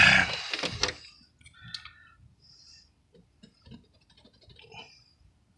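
A brief voice in the first second, then scattered faint small clicks and ticks as a spark plug is handled in the fingers.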